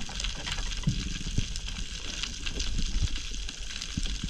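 Underwater reef sound through a submerged camera: dense, scattered clicking of the kind snapping shrimp make on a coral reef, over a steady low rumble, with a few louder knocks.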